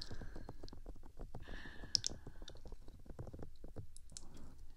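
Fingertips tapping and scratching directly on the ear pieces of a HeadRec Binal2 binaural microphone: a dense, uneven run of quick close-up taps and thuds.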